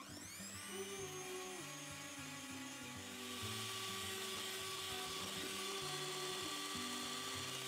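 Electric hand mixer starting up with a rising whine, then whisking soy milk at high speed with a steady high-pitched whir. The whir grows louder and fuller about three seconds in.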